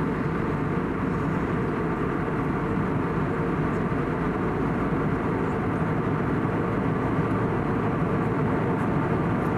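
Steady cabin noise inside an Airbus A320neo in flight: a constant rush of airflow over the fuselage mixed with the hum of its CFM LEAP-1A engines, with a faint steady tone running through it.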